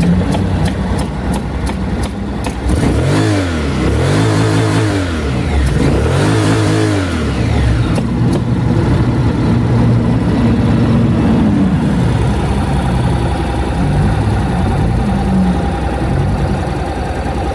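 Honda NC700X's parallel-twin engine running: revved up and back down three times about three seconds in, then settling to a steady idle.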